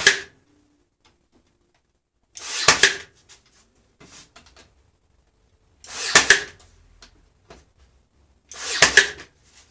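Cordless pin nailer driving pins into wood four times, about three seconds apart, each a short whir building to a sharp snap.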